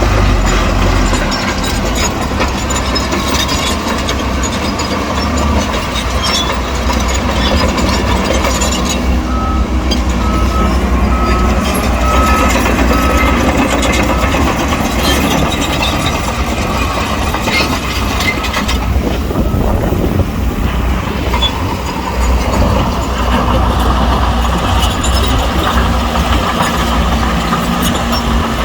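Heavy diesel earthmoving machinery, a bulldozer working alongside dump trucks, running steadily with metallic clanking. About ten seconds in, a reversing alarm beeps briefly, five or six times.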